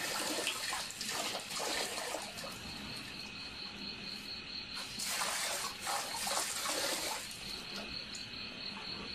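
Water running from an outdoor tap and splashing into a half-full metal bucket, against a steady, pulsing chirp of crickets.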